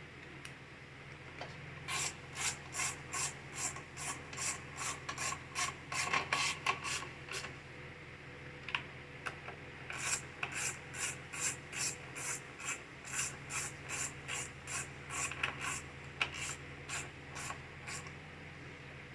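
Rhythmic rasping strokes of a hand tool working on the mower, about two or three a second, in two runs with a short pause between them.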